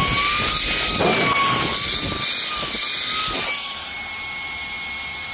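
Shark UltraCyclone cordless handheld vacuum running with a high, steady motor whine and rushing air, with crackles in the first few seconds as it sucks up dirt. The whine drops a little quieter after about three and a half seconds.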